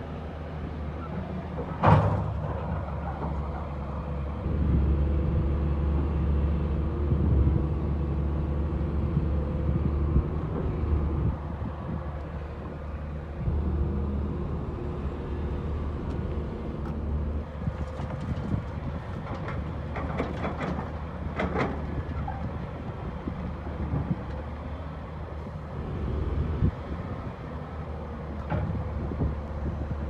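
Caterpillar 330C hydraulic excavator's diesel engine running, its note rising and falling under hydraulic load as it digs. A sharp clank comes about two seconds in, and a run of bucket scrapes and rock clatter comes a little past the middle.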